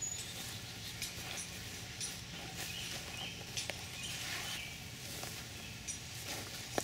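Quiet outdoor background with a steady low hum and scattered faint rustles and clicks.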